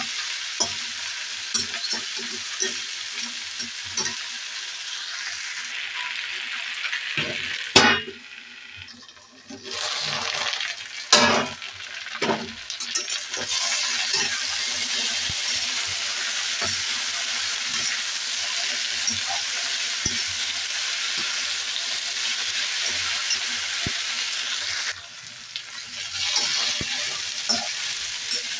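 Chopped okra sizzling in hot oil in a kadhai while a spatula stirs it, scraping and clinking against the pan. The sizzle drops briefly about eight seconds in and again near the end, with a sharp knock of the spatula about eight seconds in and another about eleven.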